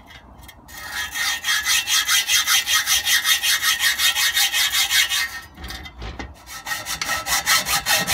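Hacksaw cutting through a steel stove flue pipe, the blade rasping in a steady rhythm of strokes, about four a second. The sawing starts within the first second and stops for about a second partway through, then carries on.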